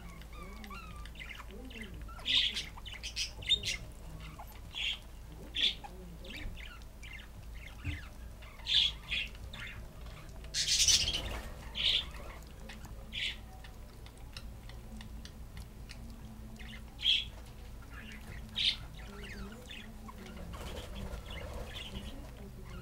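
Budgerigars chirping in short, scattered high calls about every second or two, with one louder, harsher squawk lasting about a second roughly eleven seconds in.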